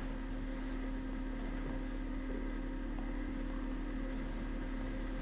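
Steady hum with a faint hiss underneath, unchanging throughout, with a short click at the very start and another at the very end.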